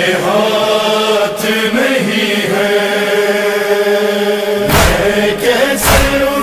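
Male voices chanting a noha in long, held, wordless lines over a steady low drone, with no instruments. About two-thirds of the way in, deep thumps of matam (chest-beating) join in, about one a second, keeping time.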